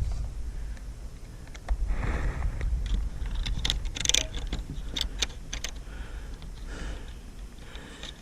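Light clicks and rattles of small metal hardware, screws and latch parts, being handled, most of them in a cluster in the middle, over a low rumble.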